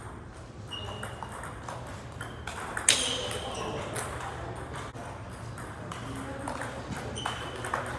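Table tennis ball clicking sharply off paddles and table during rallies, with more clicks from neighbouring tables; the loudest click comes about three seconds in.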